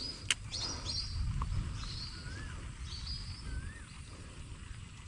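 Birds calling: scattered short high chirps, and in the middle two brief wavering whistles about a second apart, over a steady low rumble. A single sharp click sounds just after the start.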